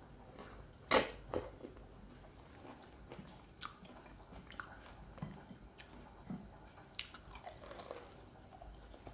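Close-miked eating sounds of a person eating fried chicken wings: a sharp wet mouth smack about a second in, then soft chewing with many small lip and tongue clicks.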